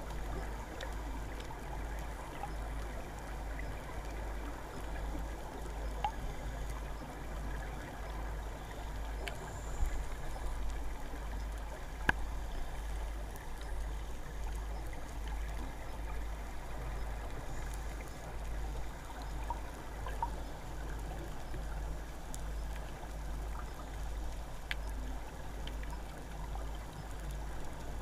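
Underwater ambient noise heard through a camera housing: a steady low rumble and hiss with an even low pulsing and a few faint clicks.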